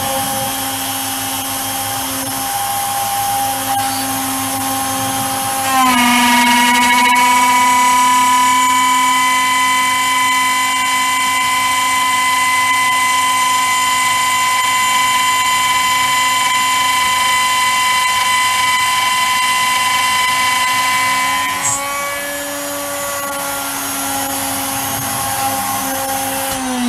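CNC milling spindle driving a 6 mm four-flute end mill through aluminium, cutting a slot with a steady whine. About six seconds in the cutter bites harder and the sound jumps louder into a high screech, held until about 21 s before easing back to a quieter whine. This screech is the sign that the depth of cut is too deep for the machine; the remedy is to reduce it, not the feed.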